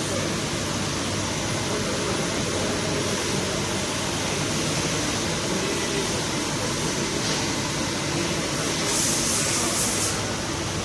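Steady hum and hiss of a powered sliding-headstock CNC lathe (Tornos Deco 13) running in a workshop, with a brief louder hiss about nine seconds in.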